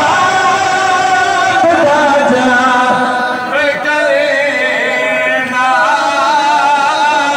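A group of men chanting a noha, a Shia lament, together in long wavering lines, led through a microphone and loudspeaker.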